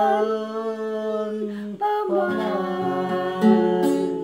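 A man and a woman singing a long held final note together over an acoustic guitar, then a fresh guitar chord strummed about three and a half seconds in that rings and fades as the song ends.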